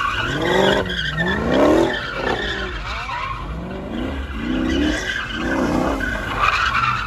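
A car's engine revving up and down several times in rising and falling sweeps while its tyres squeal under wheelspin, the squeal loudest near the end.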